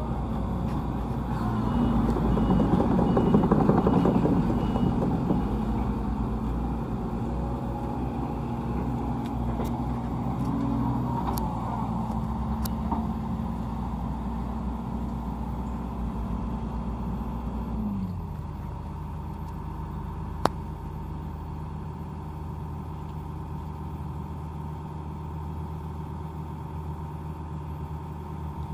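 Diesel engines of a Sumitomo crawler excavator and a laden dump truck running hard as the excavator pushes the truck through mud, loudest a few seconds in, with a short run of beeps. About two-thirds of the way through, the engine note falls and settles to a lower, steady idle. A single sharp click follows soon after.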